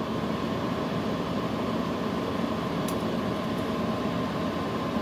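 Steady hum of a Dell PowerEdge R710 rack server's cooling fans running, with a faint tone through it and a single faint tick about three seconds in.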